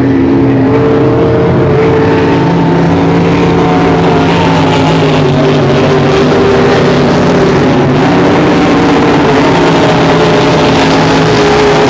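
Several racing speedboats' engines running at full throttle together: a loud, steady blend of engine notes at different pitches that drift slowly up and down as the boats run the course.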